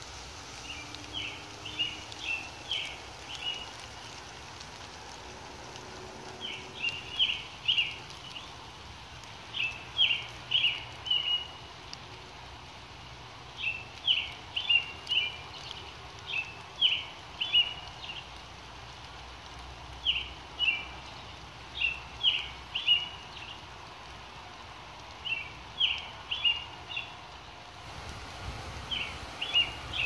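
A songbird singing, repeating a short phrase of several quick high notes every few seconds, over the steady hiss of light rain falling on leaves.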